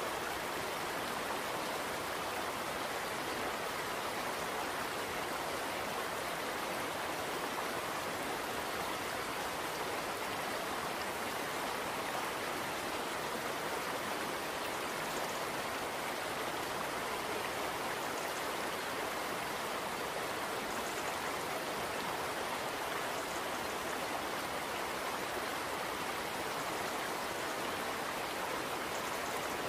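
Steady, even rushing noise like a stream, unchanging throughout, with no knocks, handling sounds or voices over it.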